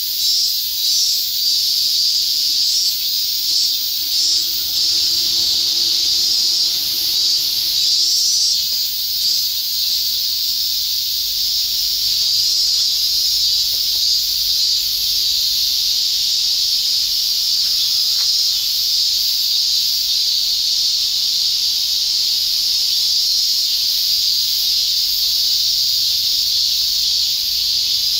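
A steady, high-pitched, buzzing chorus of insects.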